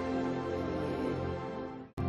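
Slow, soft worship music of sustained held chords. The music drops out to silence for an instant near the end, then comes back.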